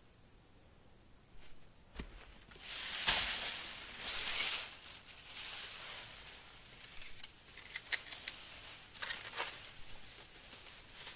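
Dry palm frond rustling and crackling as it is picked up and swung about, its dry leaflets scraping; it starts after a quiet first couple of seconds and a single knock, and is loudest a second or two later.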